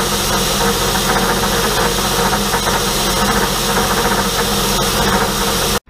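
Milling machine cutting a slot with a half-inch four-flute cobalt roughing end mill, 30 thou deep at about 2 inches a minute, a steady rattling cut over the hiss of spray coolant. The noise cuts off suddenly near the end.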